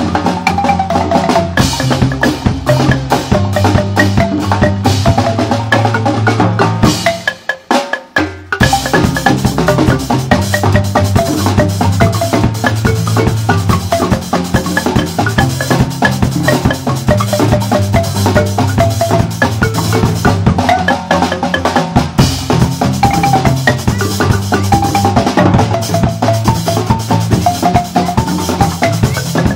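A marimba band of several wooden marimbas with tube resonators plays with a drum kit. Deep, low marimba notes carry the groove under the higher parts. The whole band stops for about a second and a half around seven seconds in, then comes back in together.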